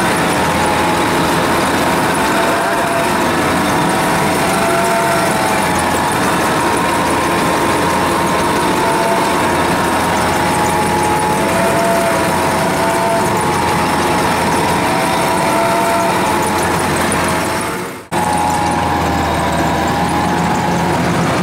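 Kubota DC-105X combine harvester's diesel engine running steadily under load as the tracked machine works to climb out of deep mud, its pitch wavering slightly up and down. The sound drops out abruptly for a moment near the end, then carries on.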